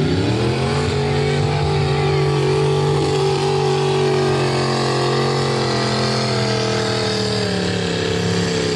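Pickup truck engine revved up hard in about the first second, then held at high revs while the truck churns through a mud pit.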